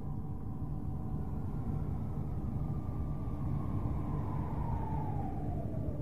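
NASA spacecraft data from Saturn's rings converted into sound: a steady, dense low rumble with eerie faint tones above it. About three seconds in, one tone begins to slide down in pitch, falling by about half by the end.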